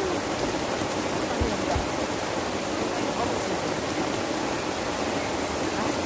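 Heavy rain pouring down steadily, an even hiss of falling water.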